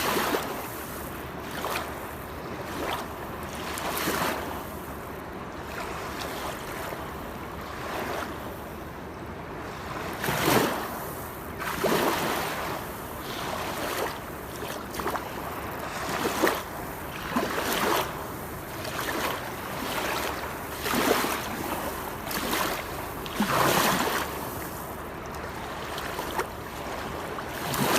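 Waterfall: a steady rush of falling water, with irregular louder surges and splashes every second or two.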